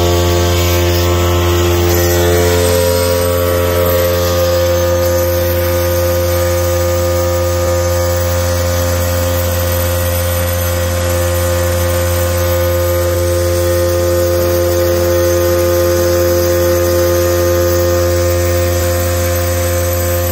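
Vibratory stress relief exciter (an electric motor with eccentric weights clamped to a welded steel plate) running steadily at about 5,200 rpm, shaking the plate to relieve welding stress. It gives a constant low hum with a buzz, and its higher tones shift slightly between about two and four seconds in.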